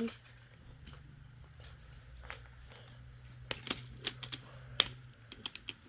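Scattered light wooden clicks and knocks of toy train cars and track pieces being knocked about, bunched together in the second half, over a faint steady hum that stops about five seconds in.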